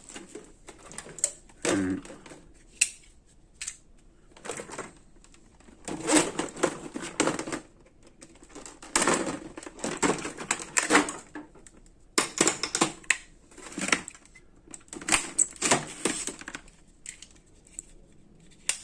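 Stiff plastic blister packaging being cut and pried open with a pocket knife: crackling and clicking in several bursts a few seconds apart.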